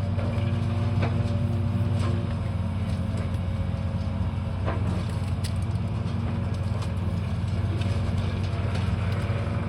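Heavy demolition machinery running with a steady engine hum, with a few sharp knocks and cracks of material breaking.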